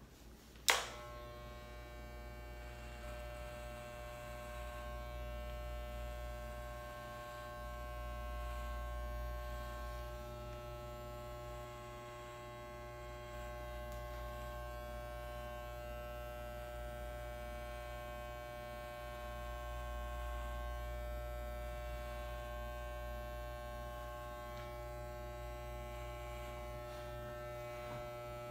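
Corded electric hair clippers switched on with a click about a second in, then running with a steady buzzing hum as they cut a man's hair.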